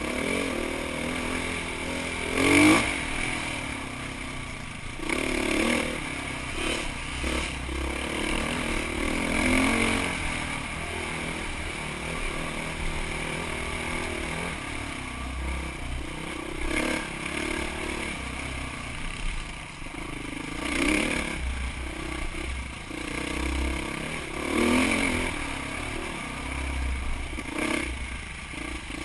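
Honda CRF450X dirt bike's single-cylinder four-stroke engine running on the trail, revving up and falling back repeatedly, with several sharp knocks and clatter as the bike rides over rough ground.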